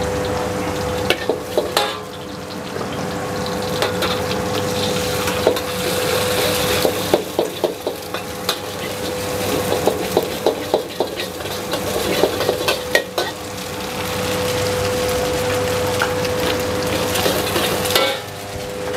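Metal spatula scraping and clanking against a wok in quick runs of strokes while rice stir-fries with a continuous sizzle over a gas burner, under a steady hum.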